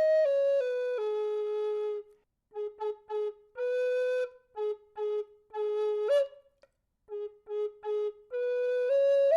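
Solo flute playing a slow melody. It opens with long held notes stepping down, breaks into a run of short separated notes with brief pauses between phrases, and rises again on long held notes near the end.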